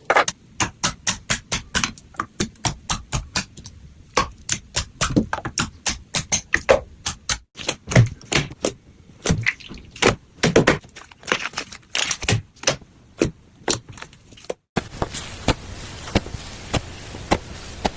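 Squishy play material, such as slime, squeezed and poked by hand, giving rapid, irregular crisp clicks and pops. About 15 s in, a steady hiss comes in under the clicks.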